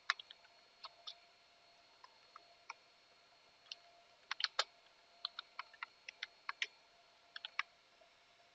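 Computer keyboard keys clicking faintly in short, irregular runs of keystrokes as a command is typed.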